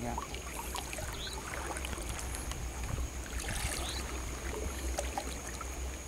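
Wading through knee-deep floodwater in a swamp: water swishing and sloshing around the legs in small irregular splashes, over a faint steady high tone.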